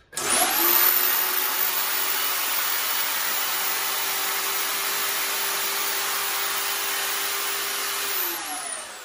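Corded drill clamped in a drill press stand, switched on at the power with its trigger zip-tied, spinning with no load: it spins up with a rising whine, runs at one steady pitch, and winds down with a falling whine about a second before the end.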